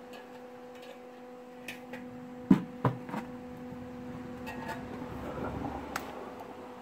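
Steel muffler and welding gear being handled: two loud metal clunks about two and a half seconds in, and scattered lighter clicks, over a steady electrical hum from the welder.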